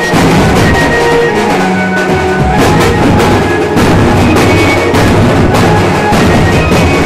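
Loud festive wedding music: large drums beaten in a fast, driving rhythm, with a held melody over the drumming.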